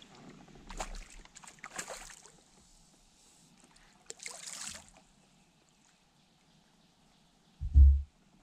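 Water splashing at the boat's side in two spells a few seconds apart, as a hooked fish is worked into a landing net. Near the end comes a single loud, low thump.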